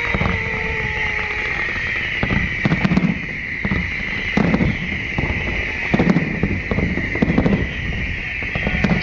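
Fireworks show: aerial shells crackling and popping in repeated clusters of quick sharp cracks over a steady background hiss, with a falling whistle fading out in the first second or so.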